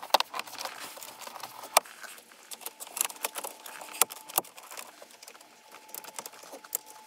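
Plastic dashboard trim of a Mini Cooper F56 being handled and pressed back into place: a run of irregular light clicks and taps, with a few sharper clicks about two, four and four and a half seconds in.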